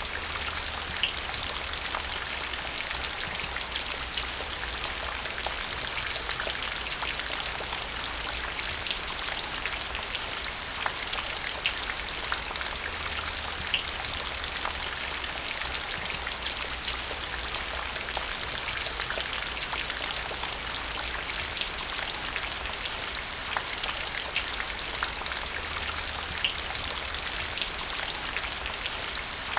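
Steady rain falling into a puddle: a constant hiss of drops with individual splashes and plinks standing out here and there.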